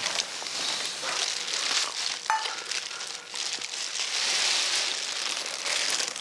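Rustling, crackling noise, with a brief high tone about two seconds in.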